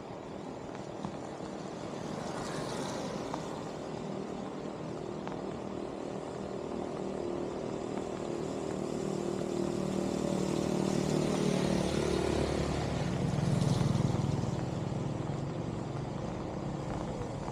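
A motor vehicle engine approaching and passing, growing louder to a peak about fourteen seconds in, then easing off, over a steady background noise.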